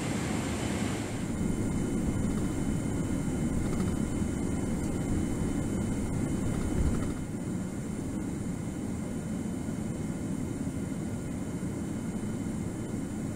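Steady low rumble of a Boeing 777-200ER heard from inside the cabin as it moves on the ground. A higher hiss drops away about a second in, and the rumble eases a little about seven seconds in.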